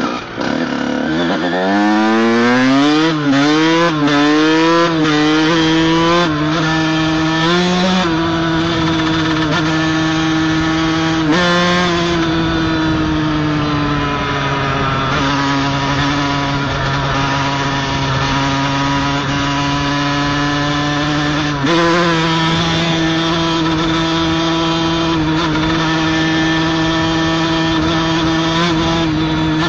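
Honda CR125 two-stroke motocross engine under way, heard from the rider's helmet: it revs up and shifts up through several gears over the first dozen seconds, the pitch dropping at each shift, then holds a steady cruise. About three-quarters of the way through the pitch steps up suddenly and stays there.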